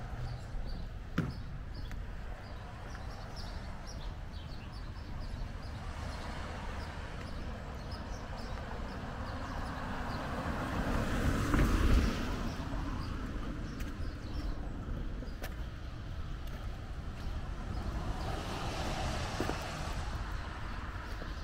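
A car driving past on the wet street, its tyres hissing on the water, swelling to its loudest about halfway through over steady wet street noise.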